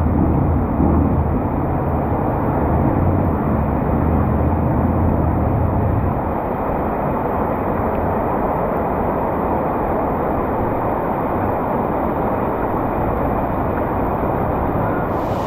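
Steady noise of heavy rain and traffic on a flooded city street, with a low vehicle engine rumble that dies away about six seconds in.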